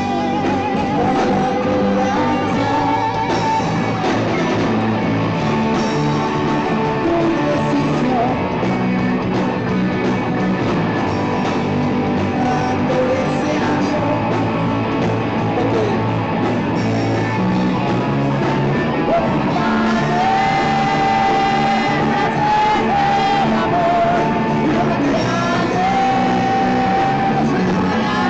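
Live rock band playing loud through amplifiers: electric guitars with a man singing into the microphone, holding long notes in the second half.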